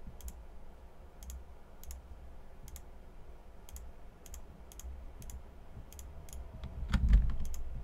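Computer mouse clicking: about fifteen quiet, irregularly spaced clicks as faces are selected one by one, over a steady low hum. A louder low bump comes about seven seconds in.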